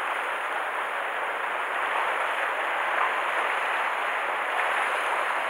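Sea waves washing against the shore rocks: a steady hiss of foaming water.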